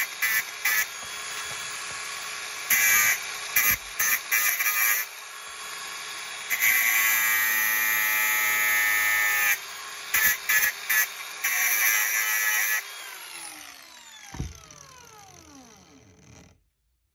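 Electric grinder running and grinding leaded solder off copper pieces in several loud bursts, then switched off and winding down with a falling whine. There is a single knock partway through the wind-down, and the sound cuts off abruptly near the end.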